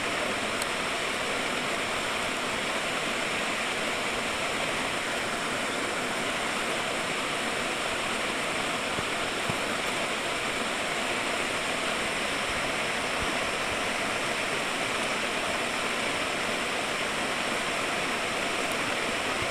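Tizu River flowing: a steady rush of running water.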